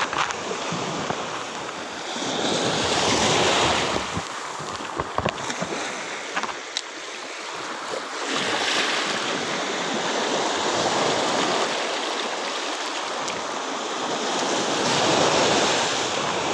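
Sea surf washing in at the water's edge. The noise of the waves swells and fades about three times, with a few light clicks in between.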